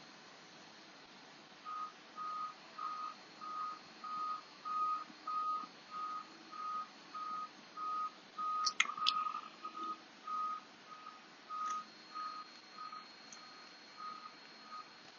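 An electronic beep repeating about twice a second, louder in the middle and fading toward the end, with two sharp clicks about halfway through.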